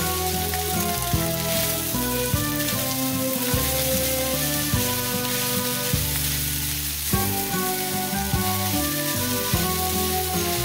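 Fried rice with scrambled egg sizzling in a hot stainless steel pan as a silicone spatula stirs and turns it, over background music with notes changing about once a second.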